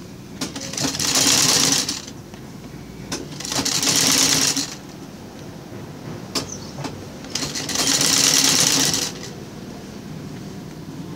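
Black vintage sewing machine stitching fabric in three short runs, each a second or two long, with pauses between them while the fabric is repositioned and a few small clicks.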